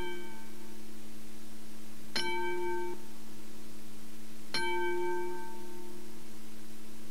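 A bell-like chime struck twice, about two and a half seconds apart, each stroke ringing out for about a second, over a steady low hum; the tail of an earlier stroke dies away at the start.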